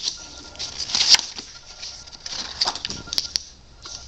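Paper rustling in short bursts, with a few light taps, as a page of a spiral-bound book is turned over and handled.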